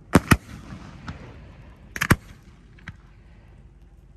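Aerial firework shells bursting overhead. Sharp reports come in quick pairs, one pair right at the start and another about two seconds in, with a fainter bang just before the end.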